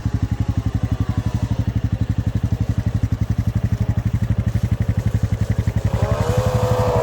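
Engine idling close by, with a rapid, steady low thumping. About six seconds in, a second, higher-pitched snowmobile engine comes in, rising in pitch and getting louder as it revs.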